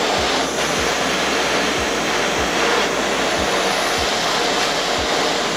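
Handheld torch flame hissing steadily as it heats the banger of a dab rig.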